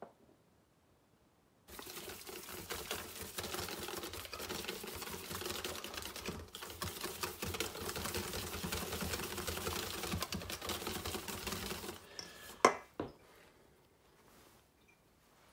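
Wire whisk beating pancake batter in a stainless steel bowl: a rapid clatter of the wires against the metal with some sloshing, starting a couple of seconds in and lasting about ten seconds. Near the end comes one sharp knock, the loudest sound.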